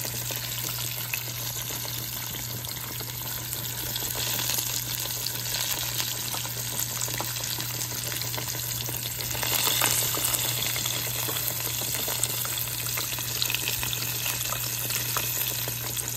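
A battered piece of catfish deep-frying in a small pan of hot oil, sizzling and crackling steadily. A steady low hum runs underneath.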